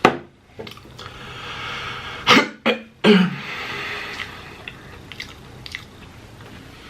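A person coughing and clearing their throat in several sharp bursts, the last about three seconds in. Faint small clicks follow.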